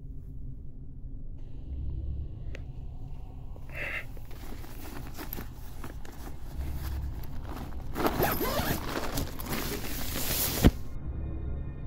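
Tent door zip being pulled, with fabric rustling and handling before it; the rasp of the zip is loudest near the end and stops with one sharp knock.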